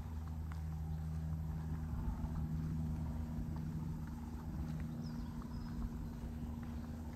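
Footsteps on hard ground over a steady low mechanical hum, with a short bird chirp about five seconds in.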